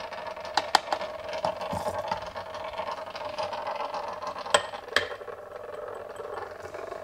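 Magnetic stirrer running with a steady hum, a stir bar spinning in a mason jar of potato broth. Over it come a few sharp taps and clicks as agar powder is shaken from a plastic cup into the jar; the loudest come about four and a half and five seconds in.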